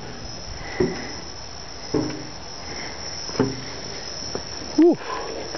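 Steady high-pitched drone of insects in tropical forest, with a few brief low vocal sounds and a louder falling one near the end.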